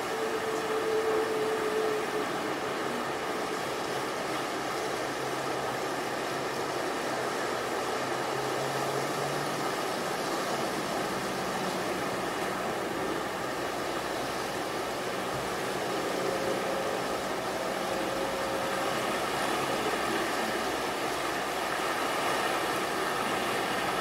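Steady wash of gentle Gulf of Mexico surf, with a faint hum now and then.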